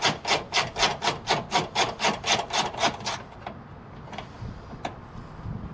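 Hand ratchet wrench turning out a battery tray bolt with quick back-and-forth swings, a rasping ratchet burr about four times a second. The ratcheting stops about three seconds in, leaving a few light clicks.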